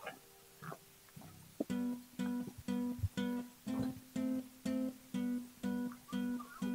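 Background music: a guitar strumming chords in a steady rhythm of about two strokes a second, coming in about a second and a half in.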